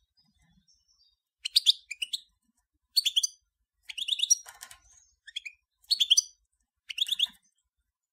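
European goldfinch of the major race singing: about six short phrases of rapid twittering and chirping notes, each about a second apart.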